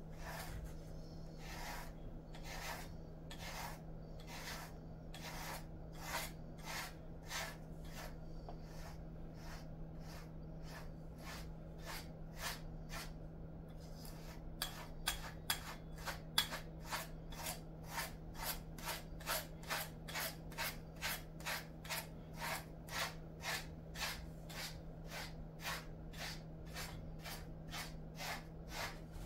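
Grooming brush drawn again and again through a Jindo dog's coat: rasping strokes, about one and a half a second at first, then quicker and brighter from about halfway. A steady low hum runs underneath.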